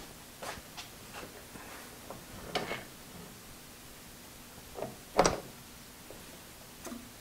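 Scattered clicks and knocks from handling a drill-press milling setup and its table crank handle, the loudest a sharp knock about five seconds in.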